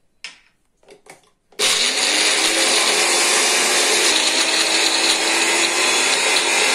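Small Indian mixer grinder (mixie) grinding green garlic, green chillies and peppercorns into a paste in its small chutney jar. A few light knocks as the jar is set and locked on the base, then the motor starts suddenly about a second and a half in and runs steadily with a faint whine.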